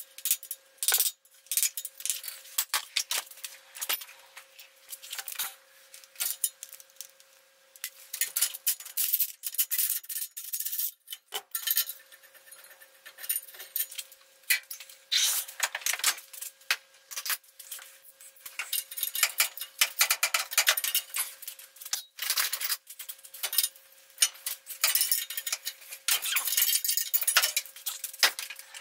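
Hand tools working on a cast-iron exhaust manifold in a truck engine bay: irregular metal-on-metal clinks, taps and rattles in busy clusters, with brief pauses, over a faint steady hum.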